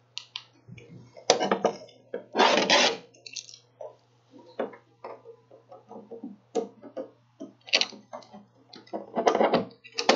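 Handling noise at the back of a flat-screen TV as a USB stick is fitted into its port: irregular plastic clicks and knocks with a few louder bursts of rustling, over a steady low hum.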